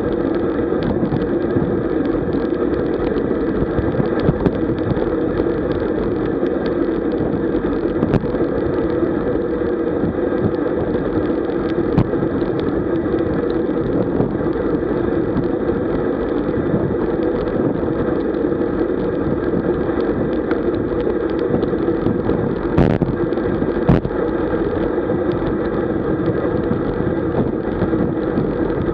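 Steady, muffled rush of wind over the camera's microphone, mixed with tyre and road noise from a road bike moving at about 40 km/h. A few brief sharp clicks stand out over the rush.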